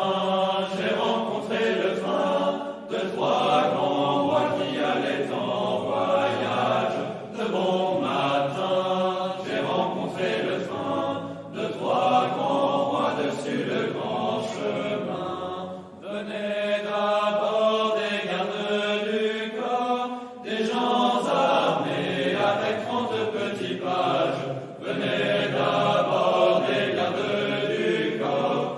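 Choral chant: several voices singing together in long sustained phrases, each about four to five seconds long, with short breaths between them.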